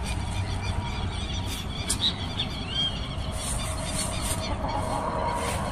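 A small flock of chickens foraging in grass, with one short, arched, high call about halfway through and a few faint clicks over a steady low rumble.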